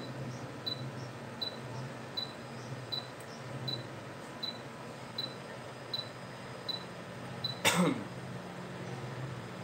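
Hot-air rework station blowing to desolder a small capacitor from a tablet's circuit board: a steady low blower hum with a short high tick about every three-quarters of a second. The ticks stop near the end, and there is one loud sharp sound that falls quickly in pitch.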